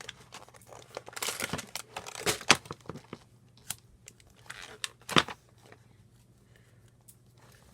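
Rustling and crinkling of paper and packaging being handled, with a few sharp crackles and clicks, stopping about five seconds in.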